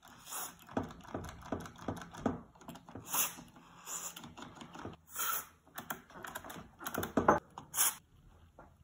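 Several short hisses of aerosol contact cleaner sprayed through an extension straw into a cassette radio's switches, mixed with sharp clicks of the switches being worked.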